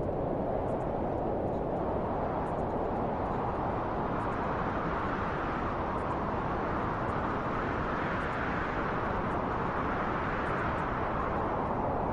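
Wind blowing steadily, with gusts that swell and ease about every few seconds.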